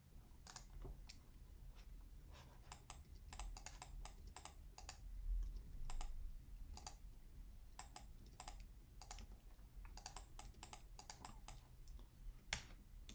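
Faint, irregular clicks and taps of a computer keyboard and mouse, sometimes several in quick succession, over a low background hum.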